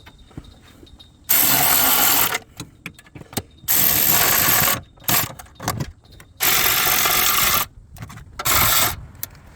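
Power tool tightening bolts in four short bursts of about a second each, with light clicks in between.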